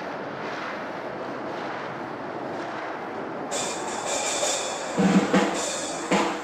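A steady noisy rumble, then music cuts in suddenly about three and a half seconds in, with sharp hits near the end.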